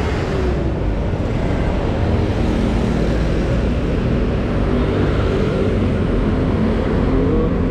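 Steady road traffic noise with a nearby engine running.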